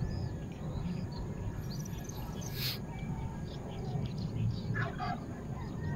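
Small birds chirping and twittering, many short scattered calls, over a steady low rumble.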